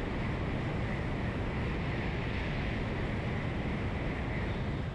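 Shinkansen bullet train running alongside the platform: a steady rush of wind and rail noise.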